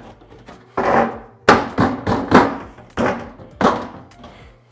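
Galvanized sheet-metal duct panels of a plenum box clanking and knocking as the S-lock seam is worked together and the box is handled on the bench. There are about six sharp knocks in quick succession, each ringing briefly.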